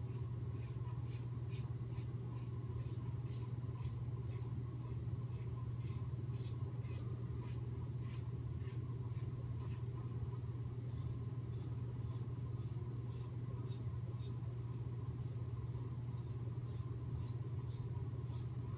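Merkur 37 slant safety razor with an Astra blade scraping through lathered stubble in short repeated strokes, about two a second, with a short pause about halfway. A steady low hum runs underneath.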